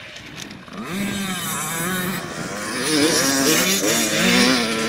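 Dirt bike engines revving as motocross bikes ride the track, the pitch rising and falling with the throttle and shifts. It starts about a second in and grows louder about three seconds in.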